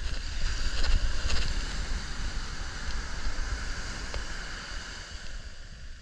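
Ocean surf: a wave breaks and washes up the beach, its hiss swelling in the first second or so and then slowly fading, with wind rumbling on the microphone underneath.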